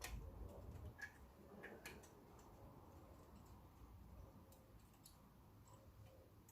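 Near silence with a few faint metallic clicks, mostly in the first two seconds: a brake caliper's pad retaining parts being worked loose by hand.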